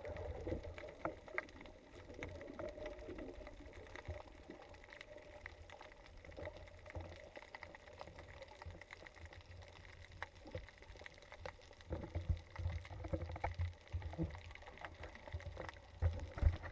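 Muffled underwater sound heard through an action camera's waterproof housing: a low rumble of water moving past, with many faint scattered clicks and knocks. The rumble comes in louder bursts over the last few seconds.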